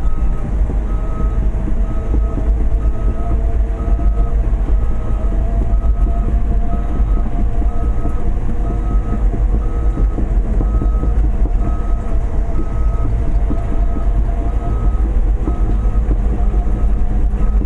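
Large excavator's diesel engine running heavily under load, with its travel alarm beeping steadily about once a second as the machine moves.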